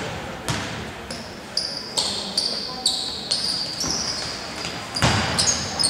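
A basketball bouncing on a hardwood court, a sharp knock about every half second, with short high sneaker squeaks on the floor. A louder impact comes about five seconds in.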